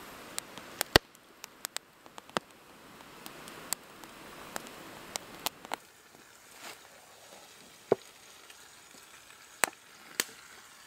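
Wood fire crackling: sharp, irregular pops and snaps over a faint hiss, the loudest about a second in and about eight seconds in.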